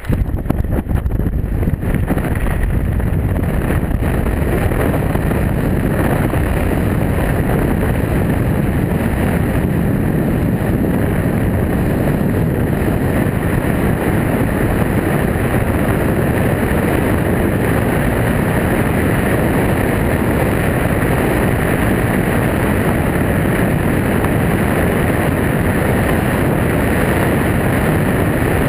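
Wind rushing over the microphone of a foot-mounted camera in wingsuit flight: a loud, steady noise, heaviest in the bass. It builds over the first couple of seconds after the jump and then holds level.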